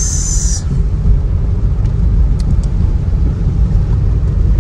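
Steady low road and engine rumble inside a moving car's cabin, driving on a wet road in the rain, with a short high hiss right at the start.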